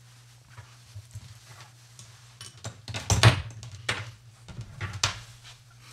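Rustling and small clicks of a lapel microphone and its cable being handled and set down, the loudest knock about three seconds in, over a steady low hum.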